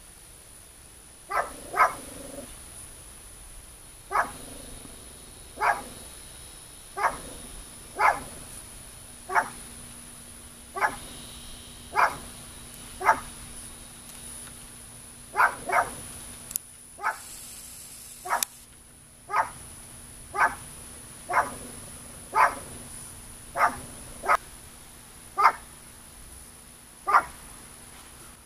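Shetland sheepdog barking repeatedly at cattle across the fence: short, sharp single barks roughly every second or two, some coming in quick pairs.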